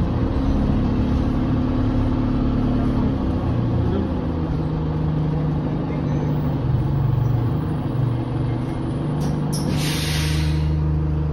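Inside an Alexander Dennis Enviro200 single-deck bus on the move: its diesel engine and drivetrain hum, their note shifting as the bus changes speed. A loud hiss of released air from the bus's air system comes near the end.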